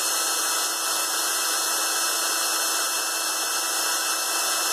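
Electric drill running steadily at constant speed, spinning a homemade wire paint mixer in a can of paint: an even whir with a steady hum.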